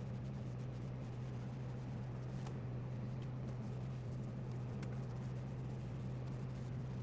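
Soft rubbing and scratching of hands working on wood, with scattered small clicks, over a steady low electrical hum.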